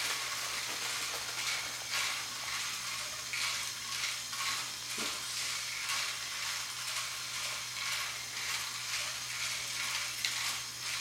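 A LEGO cement-mixer model's drum turning in unload mode, driven by a Power Functions motor with a steady low hum. Loose 1x1 LEGO bricks tumble inside the drum and slide down the chute with a continuous, pulsing plastic rattle.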